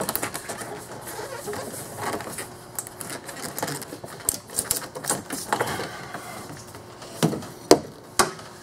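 Hand tools working on bolts: rapid, irregular clicking of a ratchet wrench with light metal clatter, and a few sharp knocks near the end.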